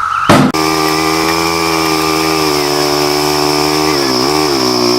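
Four-wheeler engine running steadily as the ATV moves off, its pitch dipping briefly twice near the end as the throttle eases and picks up again. A loud, short burst comes just before the engine sound begins.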